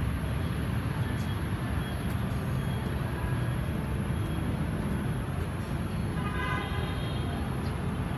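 Steady outdoor background rumble, mostly low, with a faint brief tone about six and a half seconds in.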